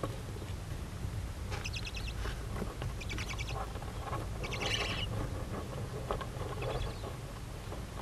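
Barn owls in the nest box giving short, rapid chittering rattles twice, then a longer hissing call about halfway through, with a fainter call near the end.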